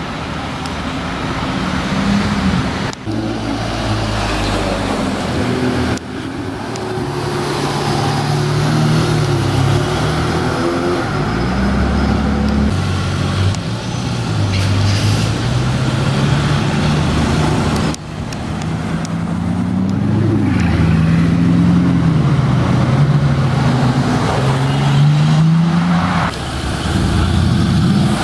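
Car engines accelerating past one after another in street traffic, pitch climbing and dropping as they rev and change gear, with abrupt breaks between short clips.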